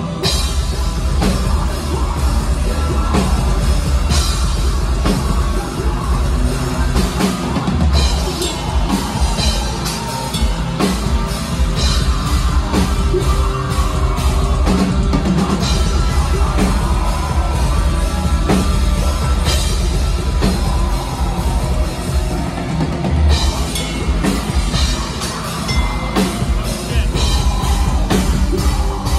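Metal band playing live at full volume: distorted guitars, bass and a pounding drum kit with heavy kick drum, the singer on the microphone over it. The full band comes in hard right at the start and drops back briefly near the end before crashing back in.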